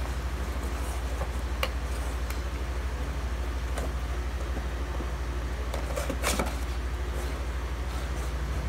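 Steady low machine hum with a fast, even pulse, and a few light clicks over it, the longest about six seconds in.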